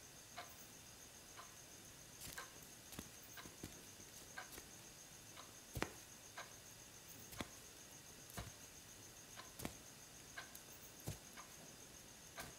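Near silence in a quiet room, with faint, irregular soft clicks and taps about once a second and a faint steady high whine.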